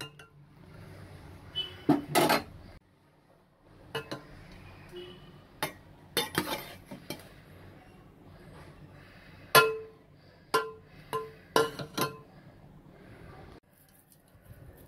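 A metal serving spoon clinks and knocks against the side of a metal cooking pot, about a dozen sharp irregular strikes, some of them ringing briefly, while gravy and rice are spooned into the pot.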